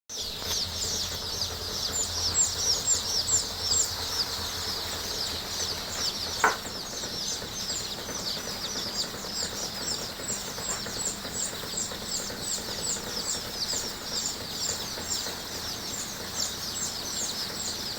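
Many young chickens (chicks) peeping together, a dense, continuous chorus of short high chirps. One brief, louder sound about six and a half seconds in.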